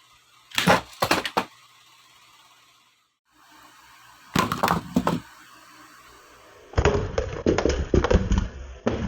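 Bursts of knocks and clattering thumps from a die-cast toy monster truck being handled and banged on a hard surface. There is a short pair about a second in, another burst around the middle, and a longer, denser clatter near the end.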